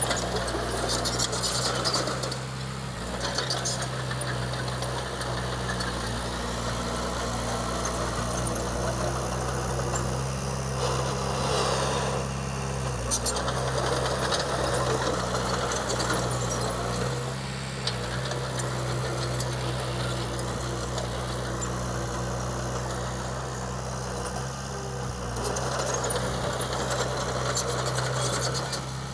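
Diesel engine of a Komatsu D20P bulldozer running steadily, its note shifting a few times as the load changes.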